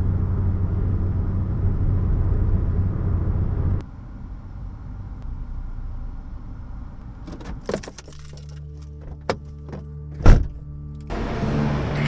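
Road and engine noise inside a moving Toyota car's cabin, a steady low rumble that drops away sharply about four seconds in. Later come a few clicks and one loud thump just before the end.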